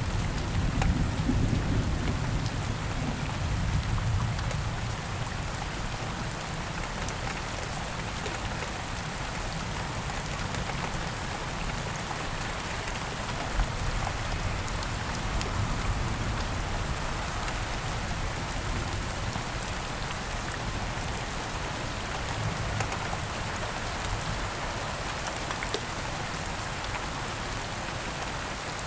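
Steady heavy rain falling, with a low rumble of thunder dying away over the first few seconds and faint rumbles later on.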